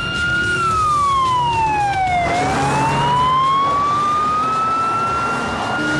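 Emergency-vehicle siren in a slow wail, its pitch falling for about two seconds and then climbing slowly back, over the noise of speeding cars.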